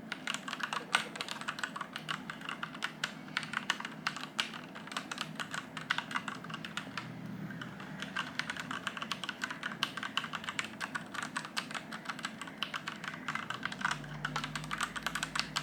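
Typing on a Royal Kludge RK84 mechanical keyboard with brown switches: a fast, continuous run of key clicks and keystrokes.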